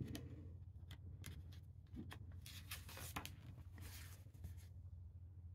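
Faint rustling and soft taps of a picture-book page being turned by hand, a few short paper rustles, most of them in the middle.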